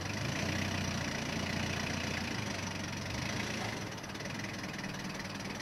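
Forklift engine running steadily under load, a little louder for the first few seconds and easing off about four seconds in.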